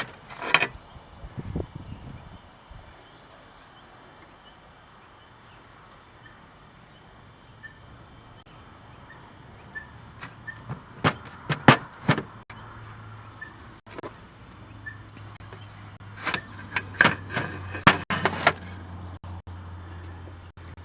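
Scattered metal clinks and knocks of hand tools and parts while a truck's clutch and brake pedal assembly is taken apart, in clusters about halfway through and near the end, over a low steady hum in the later part.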